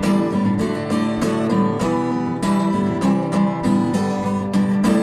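Acoustic guitar strummed in a steady rhythm of chords, an instrumental passage with no singing.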